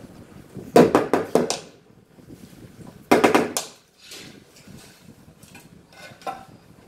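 Rubber mallet tapping a large floor tile down into its bed of combed tile adhesive to seat it: a quick run of several knocks about a second in, and another short run about three seconds in.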